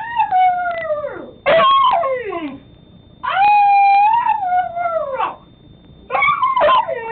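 Siberian husky howl-"talking": a run of drawn-out, pitched woo-calls that each slide down in pitch, with short breaks between them and the longest call in the middle.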